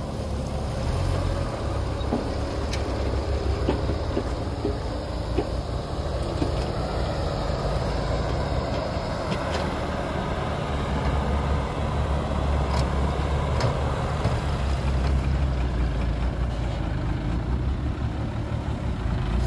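Diesel engine of a loaded dump truck pulling away over rough dirt, a steady low rumble that gets louder in the second half as the truck comes close.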